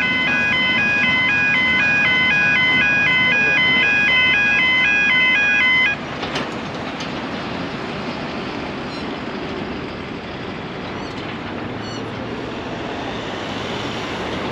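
Railway level crossing warning bells ringing as a rapid, regular alternation between two high notes, which cuts off suddenly about six seconds in, once the train has cleared and the boom gates lift. After that there is a lower, even rush of outdoor noise with a few faint clicks.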